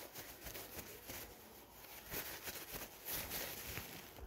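Faint rustling and rubbing of a paper tissue close to the microphone, with small handling knocks and clicks, as glasses are wiped and put on; it cuts off abruptly at the end.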